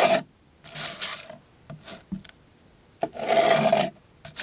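Steel knife blade (Spyderco Swayback, Wharncliffe edge) slicing through cardboard: three cutting strokes, the last the longest, with a few small clicks between.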